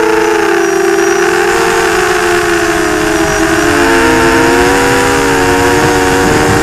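FPV drone's electric motors and propellers whining steadily, heard from the craft's onboard camera, with several pitches drifting up and down separately as the throttle shifts, over a low rush of air.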